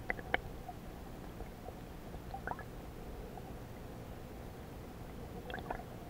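Muffled underwater ambience picked up by a submerged camera in shallow sea water: a steady low rumble with a few short clicks and crackles, the sharpest just after the start, more about midway and near the end.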